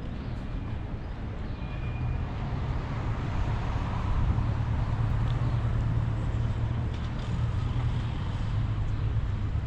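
Low, steady vehicle rumble that grows a little louder about three to four seconds in.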